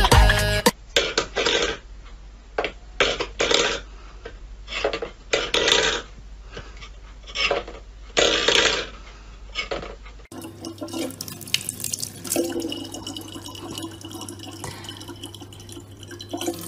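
A metal bowl scraping and clattering on a wooden floor in irregular short bursts. About ten seconds in, it gives way to a thin stream of tap water running into a plastic bottle over a low steady hum.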